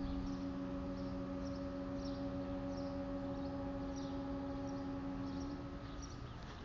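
Fire-house air horns, retired 1940s Clark Cooper ship and fog horns, sounding one steady blast of several tones together that stops about five and a half seconds in.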